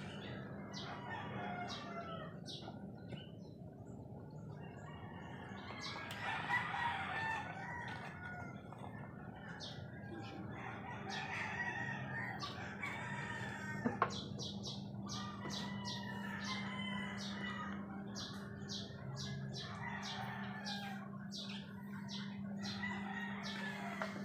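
A rooster crowing now and then and chickens clucking, with small bird chirps, over a steady low hum.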